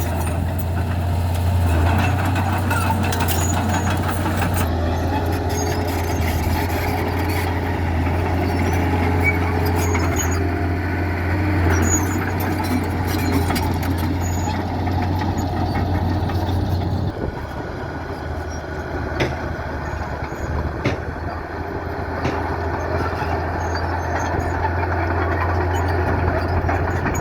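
Heavy diesel engines of construction machinery, a bulldozer and dump trucks, running steadily with scattered knocks and clanks. The sound drops a little about two-thirds of the way through.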